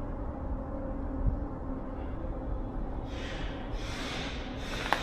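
A steady low rumble, then from about three seconds in a series of rasping, scraping strokes, each under a second. It is distant work noise carrying through the concrete parking garage, which the listeners take for someone sealing or boarding up the building.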